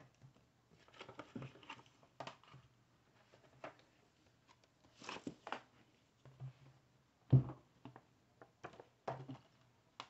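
Hands handling a hardcover book and its glossy paper dust jacket: scattered rustles and light taps, with one heavier thump about seven seconds in.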